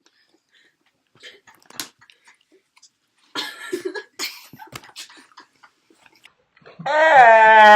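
Chewing, mouth noises and coughing as a dry dog treat is eaten. Near the end comes a loud, long held cry.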